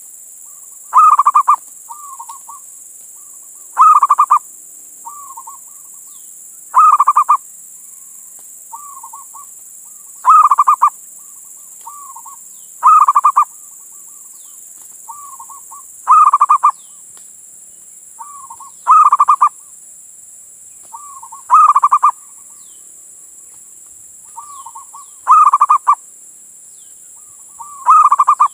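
Male zebra dove (perkutut) singing its cooing call, given about ten times at an even pace of roughly one call every three seconds. Each loud rolling coo is preceded by a couple of softer short notes. It is a male's call to a female, used as a lure.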